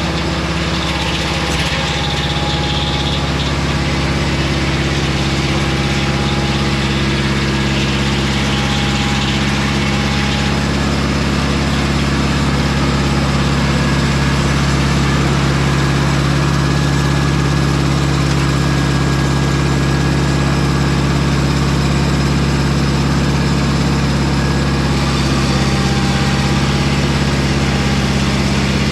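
Engine of a Mobile Dimension circular-blade sawmill running steadily at an even pitch.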